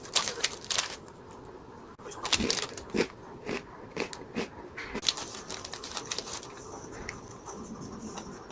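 Irregular light clicks and knocks of tableware and food being handled, a dozen or so at uneven spacing.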